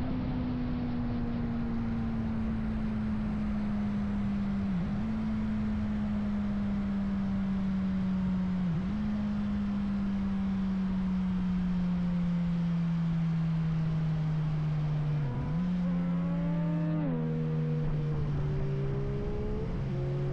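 2009 Suzuki GSR 600's inline-four engine running through a Yoshimura dual exhaust with the dB killers removed, cruising with a steady drone that slowly drops in pitch. The note dips briefly three times and settles lower near the end.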